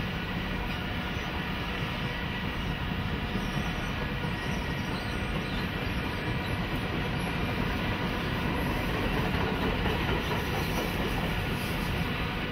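Passenger cars of a long train rolling past: a steady rumble of steel wheels on rail.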